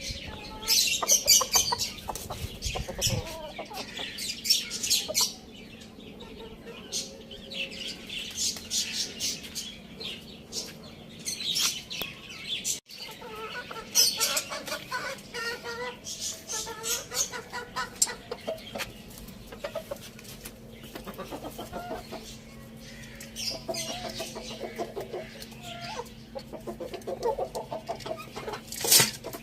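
Hen and rooster clucking as they feed, with runs of quick, sharp clicks throughout.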